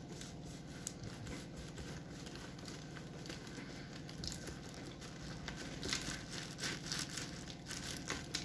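Kitchen knife sawing through a kulich (Easter sweet bread), its crisp crust and sugar glaze crackling and crumbling as the slice is cut. The sound is quiet and scratchy, with more crackle past the middle.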